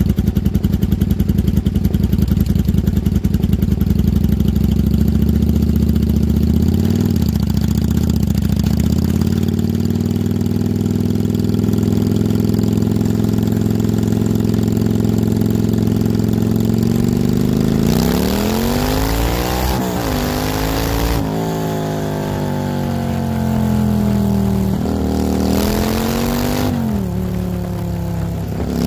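1995 Kawasaki Vulcan 750 liquid-cooled V-twin running at a steady low speed under way. Its note dips briefly about a quarter of the way in. About two-thirds of the way in it is opened up hard: the revs climb, break at gear changes, climb again, then fall away near the end, with a rushing noise rising along with the revs.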